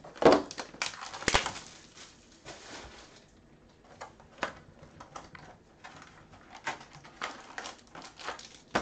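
Cardboard hobby box of 2019 Unparalleled football cards being opened by hand: a run of sharp clicks and rustles of cardboard and packs being handled, loudest in the first second and a half.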